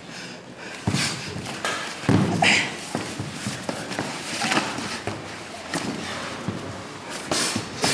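Two fighters grappling on a wooden floor: irregular thuds and scuffling as bodies and padded gloves hit and slide on the boards, with louder thumps about a second in, around two seconds in and near the end.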